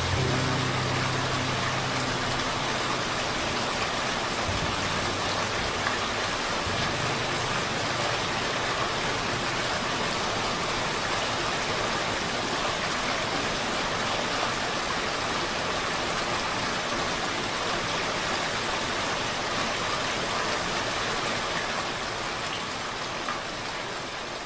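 Steady rain, a dense even hiss without distinct drops. The last low notes of the music die away in the first couple of seconds, and the rain fades out near the end.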